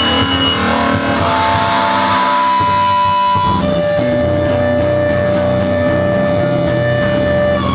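Electric guitars through amplifiers making distorted noise and held feedback tones: a high feedback whine gives way to a lower held tone about three and a half seconds in, over a dense wall of amp drone.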